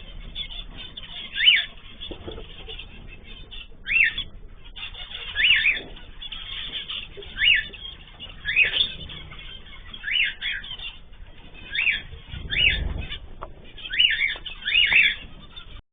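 Caged pet birds calling: a dozen or so short whistled calls that rise and fall in pitch, one every second or two, sometimes two in quick succession.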